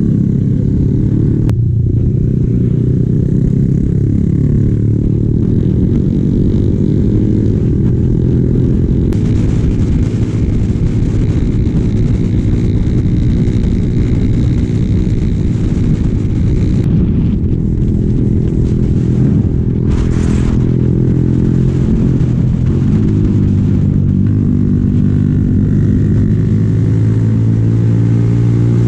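A Yamaha Sniper 135 (LC135) motorcycle's 135 cc single-cylinder four-stroke engine running under way at fairly steady revs, with the pitch drifting slightly up and down.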